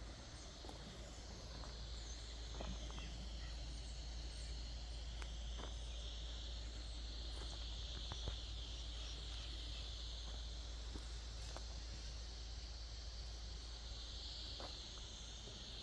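A steady high-pitched insect chorus trilling continuously, with scattered light footsteps and small crunches underneath.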